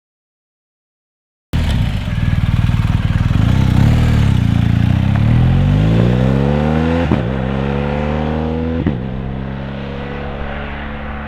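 BMW R 1250 GS ShiftCam boxer twin motorcycle engine, cutting in suddenly after a short silence, then accelerating through the gears: its pitch rises, drops with an upshift, rises again and drops with a second upshift before holding fairly steady.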